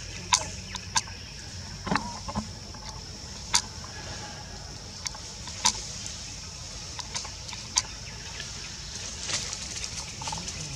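Forest ambience: a steady high drone and a low rumble, broken by scattered sharp clicks and snaps, about one every second or two.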